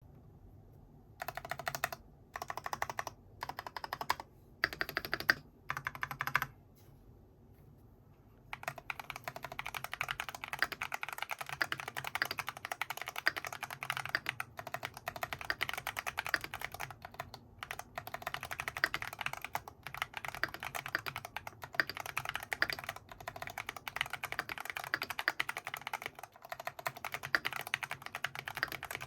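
FL·ESPORTS GP108 mechanical keyboard with Feker Holy Panda tactile switches being typed on: a few short runs of keystrokes, a brief pause, then fast continuous typing from about eight seconds in.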